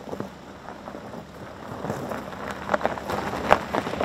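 Tyres of a BMW X3 crunching and crackling over loose gravel as the SUV drives up and passes close by. The crackle grows louder toward the end, with a few sharp stone pops at the loudest point.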